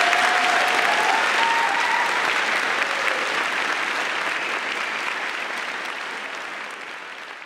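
Audience applauding, loudest at the start and slowly dying away. A voice calls out briefly over the clapping in the first couple of seconds.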